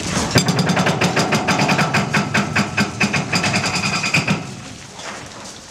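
Hydraulic breaker on a Cat 314D LCR excavator hammering the concrete deck with a rapid, steady run of blows over the running diesel engine; the hammering stops about four and a half seconds in, leaving the engine.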